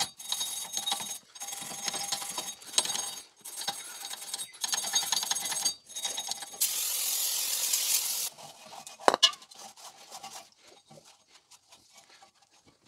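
A hand wire brush scrubbing the rusty face of a steel wheel hub in several hard strokes. A steady hiss of aerosol brake cleaner follows for a little under two seconds, then a single sharp knock and faint wiping.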